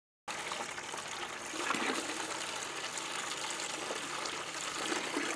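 Water running from a garden hose into a plastic bucket: a steady gushing splash that starts suddenly just after the beginning.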